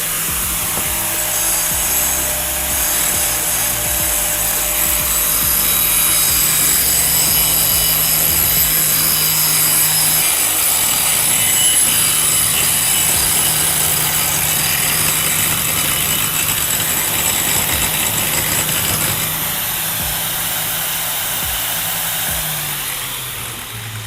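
Angle grinder fitted with a grinding disc, grinding down the rough edges of a cut piece of thin metal: a steady, loud, high-pitched grinding that eases off near the end.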